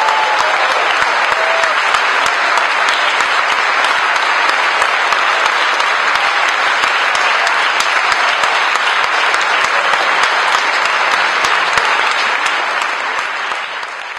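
Large audience applauding, dense steady clapping that starts to fade away near the end.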